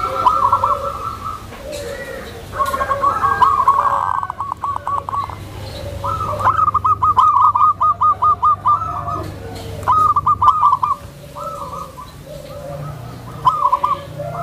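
Zebra dove (perkutut) cooing: several phrases of quick, evenly spaced staccato notes with short pauses between them, over a low steady hum.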